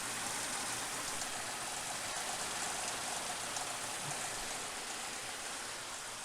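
Suzuki Grand Vitara 2.5 L V6 running at idle, heard as a steady, even hiss with faint high ticks; the engine has a misfire.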